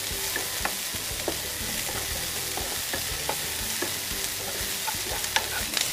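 Sliced onions sizzling in oil in a kadhai with a steady hiss, stirred with a perforated wooden spatula that scrapes and taps against the pan now and then. The onions are being cooked only until soft, not browned.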